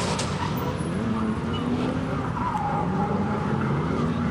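Drift car engine revving up and down as the car slides around the track, over a steady hiss of tyre noise.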